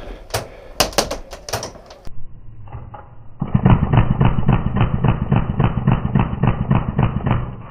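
Airsoft gun firing in quick shots for about two seconds. After an abrupt change to a muffled sound, a loud, even run of knocks comes about four a second from a second and a half later until just before the end.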